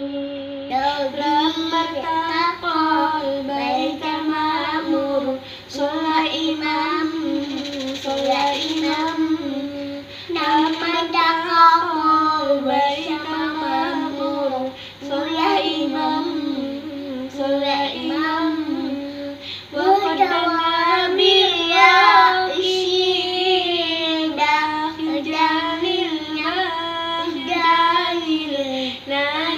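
A small girl and a woman singing together an Arabic devotional song, phrase after phrase with short breaks between them.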